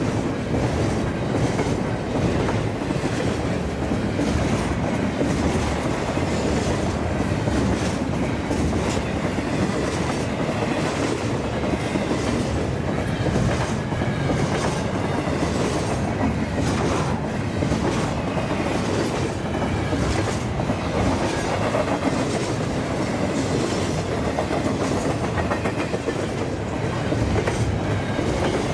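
Double-stack intermodal freight cars passing close at speed: a steady rumble of steel wheels on rail, with repeated clickety-clack clicks as the wheels pass over rail joints.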